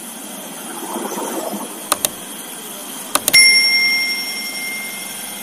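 Sharp clicks, one about two seconds in and a quick double click a second later, then a single bright bell ding that rings out and fades over about two seconds.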